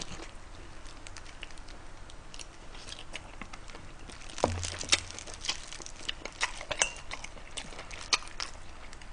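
Close-miked chewing of spicy braised pig's trotter (bul-jokbal), with scattered short wet mouth clicks and a soft low bump about four and a half seconds in.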